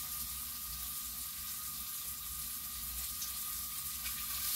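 Mushrooms sizzling as they sauté in a stainless steel frying pan: a steady high hiss.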